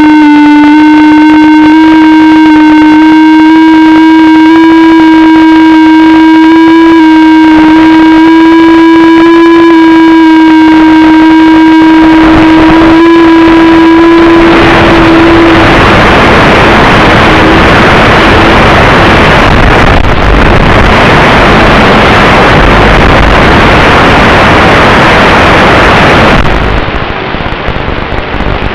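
FPV quadcopter motors running with a loud steady hum that creeps slowly upward in pitch. About halfway through the hum gives way to a loud, rushing noise, and near the end that noise loses its top.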